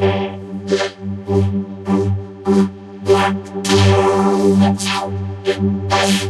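A chorus of cartoon sneezes and hiccups run through a vocoder, so that they come out as a held synthesizer-like chord. Sharp noisy bursts land roughly twice a second, with a longer hissing stretch a little past the middle.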